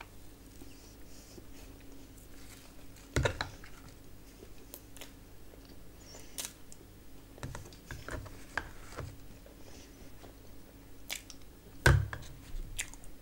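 A person eating close to the microphone: chewing and soft wet mouth sounds as rice and curry are eaten by hand and curd by spoon. A few sharp clicks break in, the loudest about three seconds in and near the end, over a faint steady hum.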